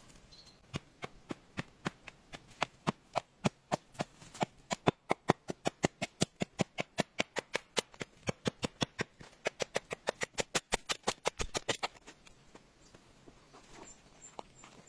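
A rapid, regular series of sharp knocks, about four a second, quickening toward the end and stopping about twelve seconds in.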